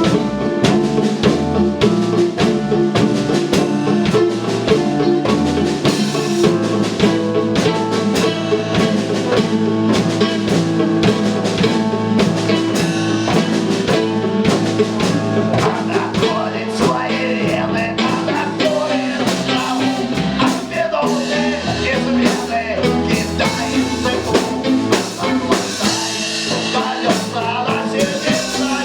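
Live rock band playing: a drum kit keeps a steady beat under bass and sustained pitched instruments.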